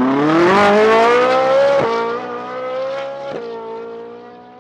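Ferrari 458's naturally aspirated V8 at full-throttle acceleration, its note climbing steadily in pitch. It briefly dips on an upshift about two seconds in and again about three and a half seconds in, then climbs again from a lower pitch. The sound grows fainter as the car pulls away into the distance.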